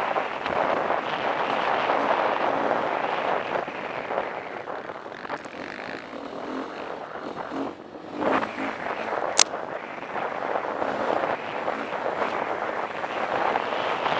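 KTM 350 EXC single-cylinder four-stroke dirt-bike engine running under varying throttle, with wind rushing over the microphone. The engine drops off briefly about eight seconds in, and a single sharp click comes about a second later.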